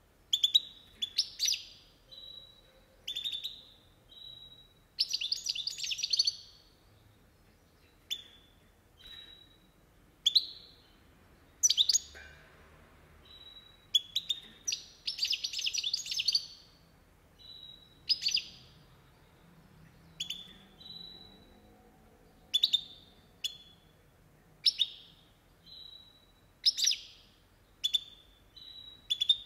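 European goldfinch calling and singing: bright short calls a second or two apart, broken by longer twittering phrases of song about five seconds in and again around the middle.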